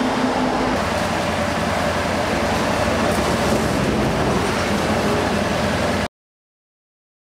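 Steady street ambience with traffic hum, cutting off abruptly about six seconds in.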